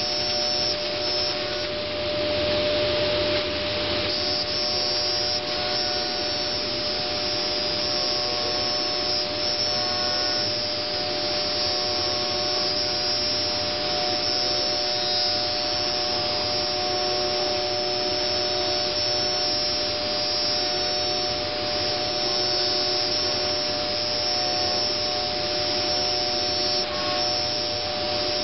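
Multicam 3000 Series CNC router running: a steady whine in two tones from its 7.5 HP spindle over an even rushing noise from its vacuum and dust-collection system.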